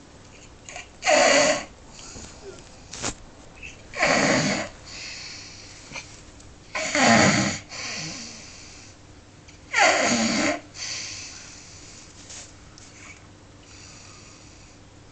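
A person snoring heavily in deep sleep: four loud, rasping snores about three seconds apart, then only softer breathing in the last few seconds.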